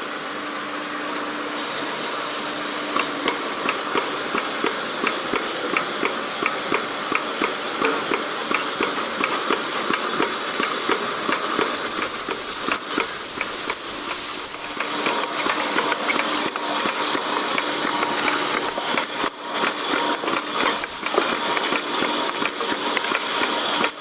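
Syrup bottle filling line running: a steady machine hiss with a regular clacking about twice a second, which turns more irregular about halfway through.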